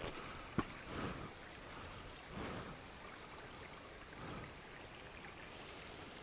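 Faint trickle of water with footsteps scuffing over rock and gravel, one sharp click about half a second in.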